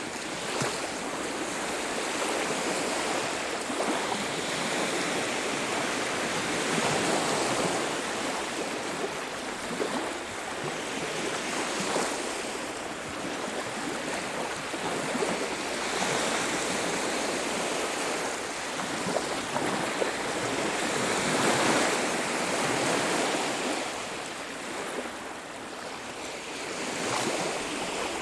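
Surf on a beach: waves washing in and breaking, the noise swelling and easing every few seconds.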